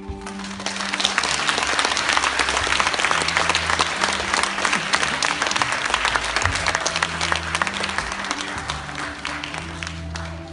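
Audience applauding, swelling about half a second in and dying away near the end, over quiet background music.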